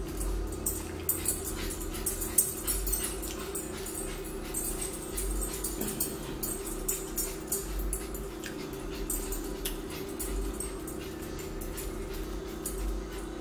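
Close-up eating sounds: irregular wet chewing and lip-smacking clicks with light clinks of a fork, over a steady low hum.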